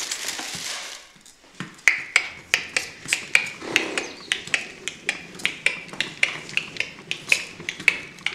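Clip-clop of horse hooves trotting at about three to four steps a second, a sound effect for a horse-drawn carriage pulling away, beginning after a brief rustle in the first second.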